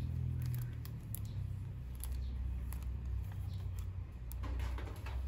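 Shrink-wrapped plastic cassette case handled in the fingers: light clicks and taps of nails and plastic, with a short patch of crinkling wrap about four and a half seconds in, over a steady low hum.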